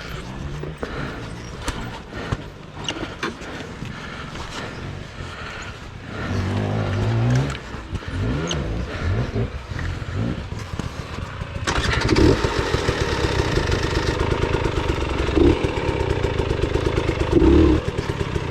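Off-road motorcycle engine running and revving, with knocks and rattles in the first half. The engine gets louder and steadier from about twelve seconds in.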